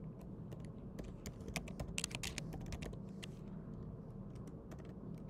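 Computer keyboard being typed on: irregular key clicks, with a quick run of keystrokes about two seconds in, over a steady low hum.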